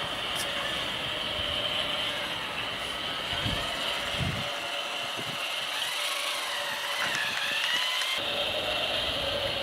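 Playmobil 5258 battery-powered RC freight locomotive running along plastic track: the steady whine of its small electric motor and gears.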